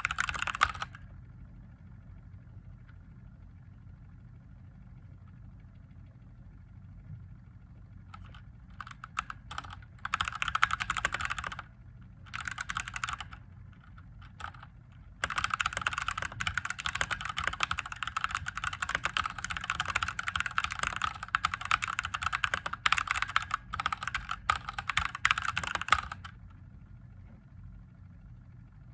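Typing on a mechanical keyboard with Gateron Yellow linear switches, the keys clacking in quick runs. A brief flurry at the start is followed by a pause, then short spells of typing and a long unbroken stretch that stops a few seconds before the end. A faint low hum lies under it throughout.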